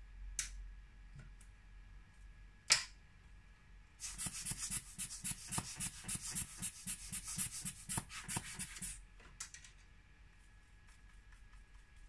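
Two sharp clicks, then about five seconds of rapid back-and-forth rubbing on the iPhone's screen, about five strokes a second, with a dry hiss that stops suddenly.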